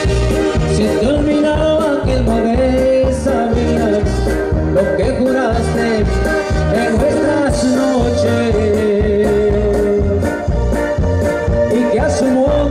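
Live Latin dance band music with a steady beat and singing.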